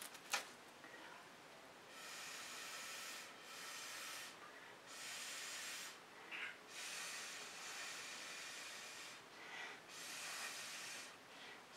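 A person breathing close to the microphone: a string of soft, airy breaths, each about a second or so long, with short gaps between them. A sharp click comes just after the start.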